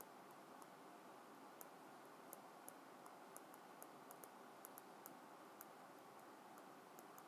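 Faint, irregular ticks of a stylus tapping on an iPad's glass screen while words are handwritten, over near-silent room tone.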